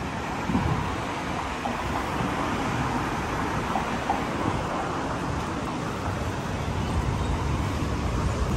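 Road traffic: cars driving past steadily on a multi-lane road, with a double-decker bus's engine coming close near the end.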